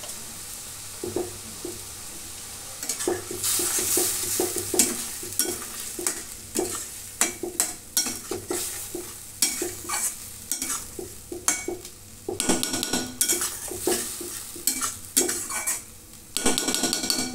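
Steel spatula scraping and clinking against a stainless-steel kadai as the pointed gourd is stirred into a sesame-paste gravy, with a hiss of frying underneath. The stirring starts about a second in and goes in irregular strokes.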